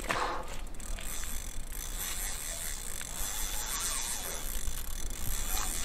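Spinning reel on a carp rod ratcheting and whirring as a hooked carp is played against the pull of the fish.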